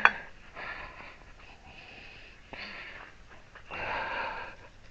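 A sharp click, then a man's heavy breathing, three breathy exhales, as he strains to pull a long wrench tight on a hydraulic cylinder's nut.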